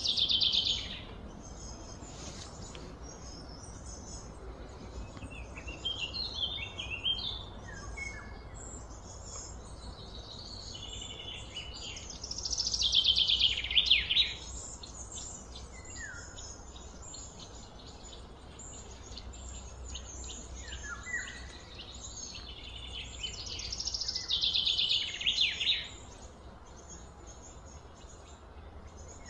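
A songbird singing a loud, fast run of high notes that drops in pitch, about a second and a half long, three times about twelve seconds apart, with softer chirps in between, over steady low background noise.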